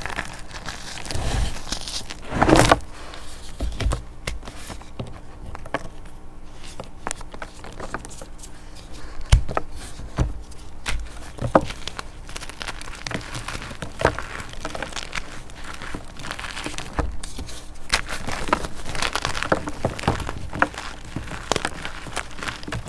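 Crunchy chalk covered in black chalk paste being crushed: irregular crackles and crunches, with one louder crunch about two and a half seconds in.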